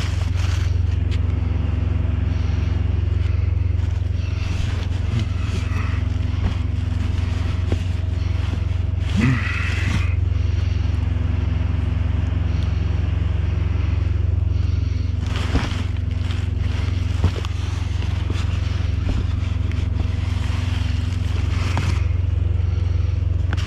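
A steady low mechanical hum, like an idling engine or machinery, throughout, with occasional scraping and rustling of items being handled in a dumpster.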